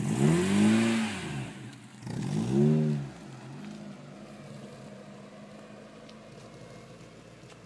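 Mazda MX-3's engine revved twice in quick succession, each rev rising and falling in pitch, with a smaller third rev after it. The engine then settles into a steady, quieter run and fades as the car drives away.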